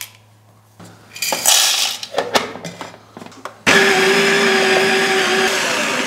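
Baratza coffee grinder switching on about two-thirds of the way in and running steadily, grinding a 16 g espresso dose. Before it come a few light metallic clinks of cups being handled.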